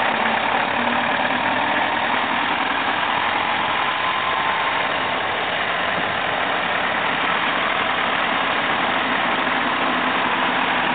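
SAME Samecar utility tractor's engine running steadily as it drives.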